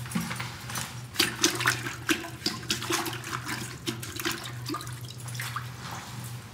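Water sloshing and splashing in a toilet bowl as a cleaning tool is swished through it, in a run of quick, sharp splashes that start about a second in and die away near the end.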